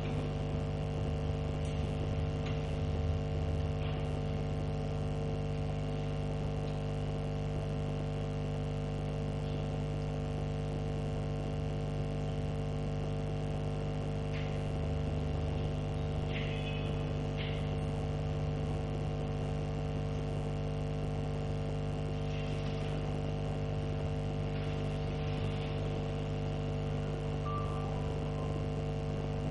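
Steady electrical mains hum, a constant buzz made of several fixed tones, with a few faint ticks partway through.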